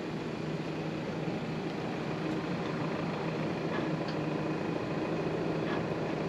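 Mercedes-Benz X250d ute's four-cylinder diesel engine running at idle as the ute reverses slowly, a steady hum that grows slightly louder as it draws closer.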